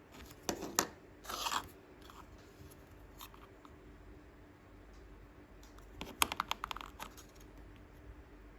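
Small clicks and rattles from handling model-painting supplies on a desk, in two short clusters: one near the start and another about six seconds in.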